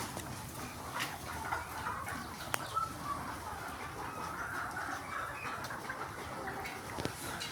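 A flock of Sonali chickens clucking and chattering steadily, with a few short sharp clicks.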